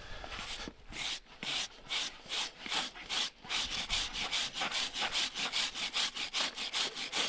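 A stiff brush scrubbing the sole of a horse's hoof in quick, even strokes, about four a second, starting about a second in, cleaning the hoof after its pad has been taken off.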